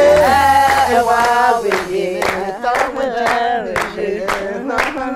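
A group of voices singing a song together. From about two seconds in, hand claps join in time, about two a second.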